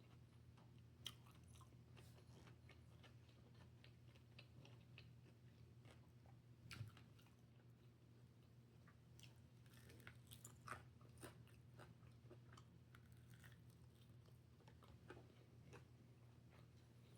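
Faint chewing: scattered soft crunches and clicks of someone eating food, over a low steady hum.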